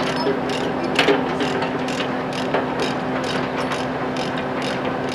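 Mobile crane's diesel engine running steadily under load while it hoists a heavy steel component, with irregular clicking throughout.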